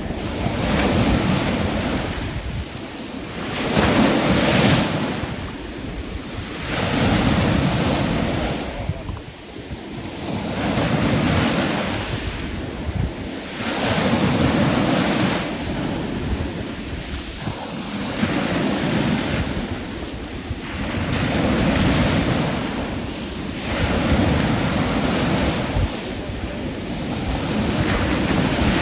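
Sea surf washing in, the rush of water swelling and ebbing every two to three seconds.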